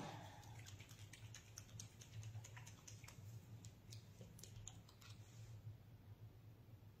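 Faint small clicks and ticks of a plastic dropper cap being twisted on a bottle of acrylic ink, mostly in the first five seconds, over a faint low hum.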